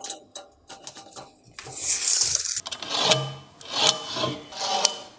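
A knife scoring a line across a wooden beam along a try square, a series of scratching strokes a little under a second apart in the second half, after light clicks and pencil scratching at the start.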